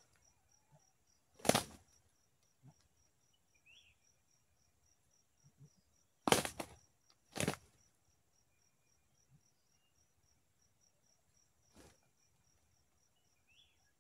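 Short bursts of wing-flapping from junglefowl roosters: one about a second and a half in, two close together around six and seven seconds, and a softer one near the end. Faint steady insect chirring runs underneath.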